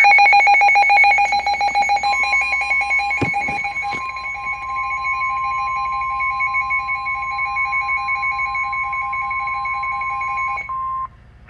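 Emergency Alert System attention tone received over radio for a flash flood warning: a loud, rapidly pulsing two-tone alarm. About two seconds in, a steady single tone joins it, and both cut off shortly before the end.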